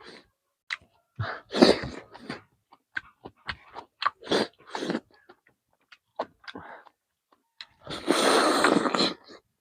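Close-up eating sounds: irregular wet chewing and mouth clicks, with a longer, louder noisy burst about eight seconds in.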